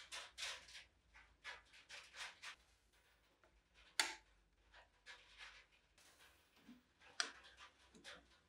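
Quiet handling sounds as polished saw-handle screws are fitted into the wooden handle of a hand saw: soft rubs and scrapes, with a sharp metallic click about four seconds in and another about seven seconds in.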